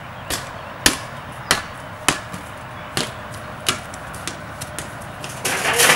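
A handball rally: a ball slapped by hand and bouncing off a wall and concrete, a string of sharp smacks about every half second to second. Near the end comes a louder scuffle with a shouted call.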